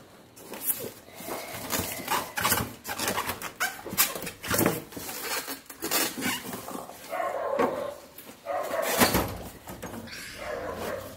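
Polystyrene foam packing blocks squeaking and scraping as they are worked loose from a dough-roller pasta machine. The sound comes as many short rubbing scrapes, with longer squeaks about seven seconds in and again near the end.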